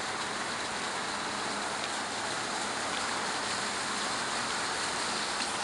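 Water jets spraying from a giant fire hydrant sculpture's fountain and splashing onto rocks below: a steady hiss of falling water.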